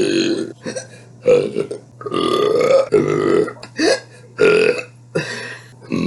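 A person burping loudly, about seven burps in quick succession, some short and some drawn out to nearly a second.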